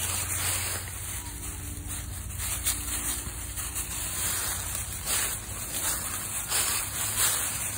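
Dry fallen leaves rustling and crunching underfoot as a toy poodle trots through a thick layer of them, an uneven run of crackles.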